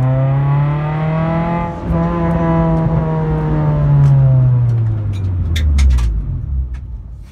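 Honda B18 four-cylinder engine, breathing through a velocity stack fed through the headlight insert, heard from inside the Civic's cabin while driving. The revs hold and climb a little, then fall away steadily in the second half as the car slows, fading near the end, with a few sharp clicks.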